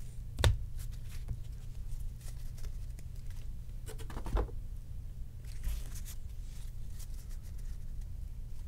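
Baseball trading cards handled and flipped through by hand: light clicks and rustles as cards slide off the stack, with two louder taps about half a second in and around four seconds, as a card or the stack knocks on the table.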